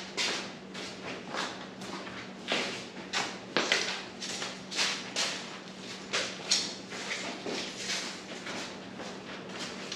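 Irregular footsteps, scuffs and light knocks on a shop floor, roughly one or two a second, over a steady low hum.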